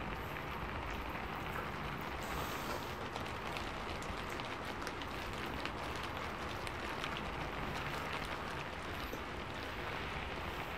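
Heavy rain falling steadily: a continuous even hiss with faint scattered ticks of drops.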